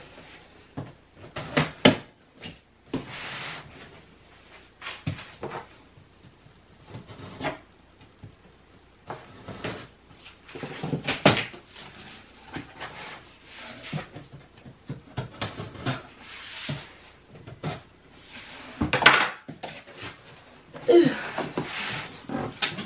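Cardboard shipping box being opened by hand: irregular knocks, scrapes and rustles as the taped flaps are worked loose and folded back, with a couple of louder clatters midway and later.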